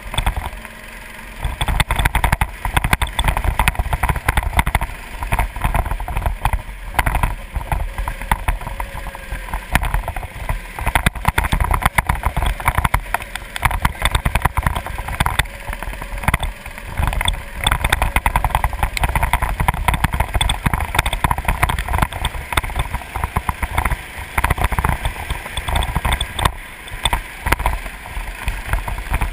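Go-kart engine running under way, heard from a camera mounted on the kart, with heavy wind rumble on the microphone. The loudness dips briefly about a second in.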